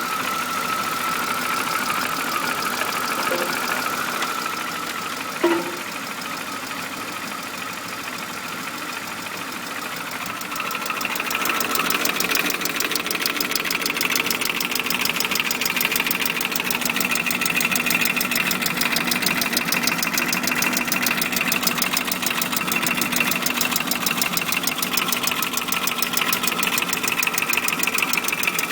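BMW engine idling with a fast, even mechanical ticking, a 'tac, tac, tac'. It gets louder about a third of the way in, with one short sharp click before that. The owner does not know the cause, says the idle hunts, and notes a vacuum hose is disconnected.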